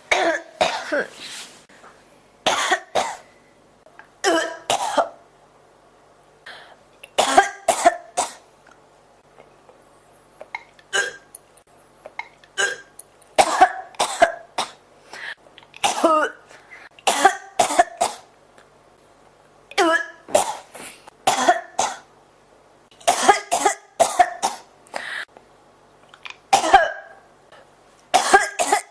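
A person coughing in repeated fits: short runs of two to four coughs every couple of seconds, with quiet gaps between.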